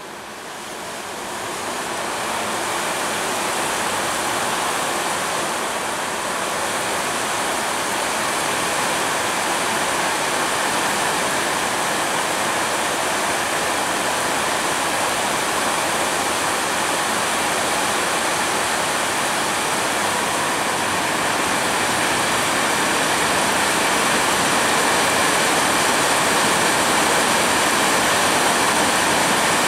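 Heavy rain falling steadily, a dense even hiss that fades in over the first couple of seconds.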